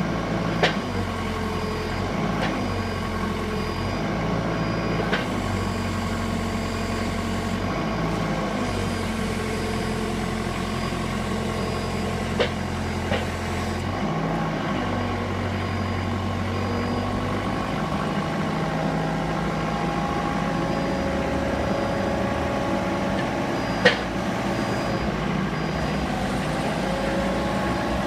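Isuzu diesel engine of a 3-ton forklift running steadily, its note shifting several times as the hydraulics work the bale clamp arms. A few sharp clunks, the loudest about four seconds before the end.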